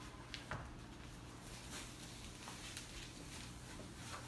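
Faint rustling and crinkling of a plastic wrapping sleeve being handled and pulled off a large flat-screen picture frame, with a few soft ticks.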